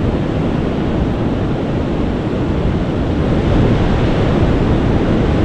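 Surf washing onto a sandy beach, mixed with wind buffeting the microphone: a steady rushing noise that grows a little louder a bit past halfway.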